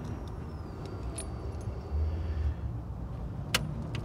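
Fiat Palio engine idling with a low steady rumble, just after new spark plugs were fitted to cure a misfire, while the ignition keys jangle on the steering column; a sharp click sounds about three and a half seconds in.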